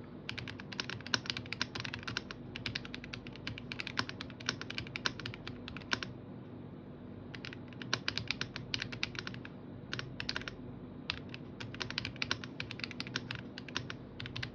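Typing on a Royal Kludge RK M75 gasket-mount mechanical keyboard with K Silver switches: quick runs of key clicks, with a pause of about a second around the middle.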